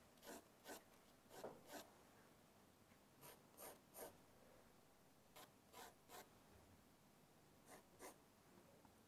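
A pencil drawing straight lines on paper: faint, short strokes, about a dozen, coming in twos and threes with pauses between.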